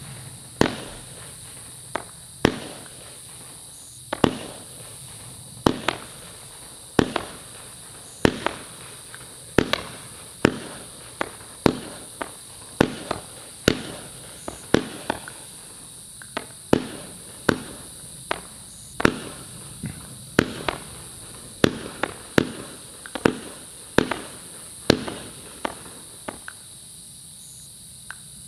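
A noise-reduced 25 mm consumer firework battery firing its shots in a steady string, a sharp thump roughly every second, sending up red falling-leaves and strobing effects. The firing stops a couple of seconds before the end.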